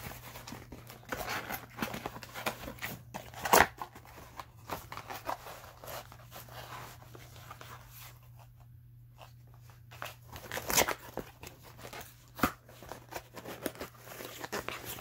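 Cardboard and plastic toy packaging being torn open by hand: irregular crunching, crinkling and ripping, with a few sharper, louder tears and a brief lull past the middle. A faint steady low hum runs underneath.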